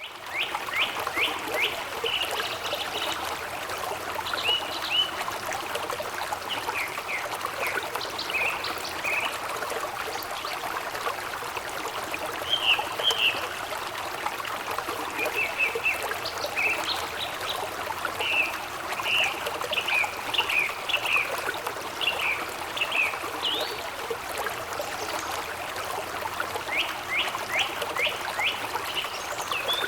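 A small stream flowing gently with a steady trickle, and songbirds chirping over it throughout, including runs of quick falling chirps near the start and again near the end.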